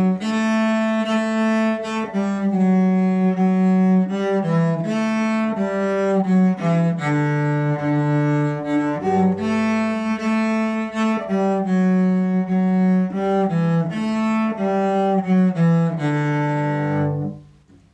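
Solo cello playing a short beginner melody in separate bowed notes, D F A, A G F F, G E A G, F E D, in its low-middle range. The notes stop about 17 seconds in.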